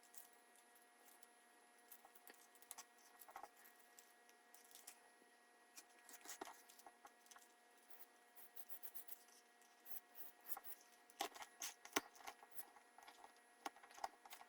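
Faint, scattered clicks and taps of small screws and lock nuts being handled and fitted to a servo motor bracket, getting busier in the last few seconds.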